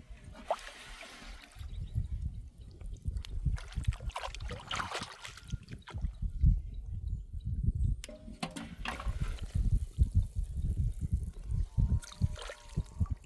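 Water splashing and trickling in shallow water, in several short splashes, over irregular low thumps and rumble of handling or wind on the microphone.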